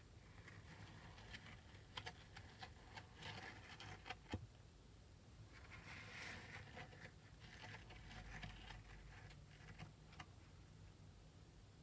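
Kinetic sand being cut and crumbled: faint scattered crunches and small clicks, with a sharper click about four seconds in and a soft rustling crumble around six seconds.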